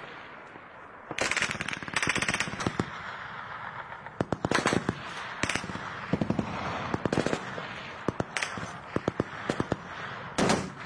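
Automatic gunfire in short bursts of rapid shots, repeating every second or two, with single shots in between.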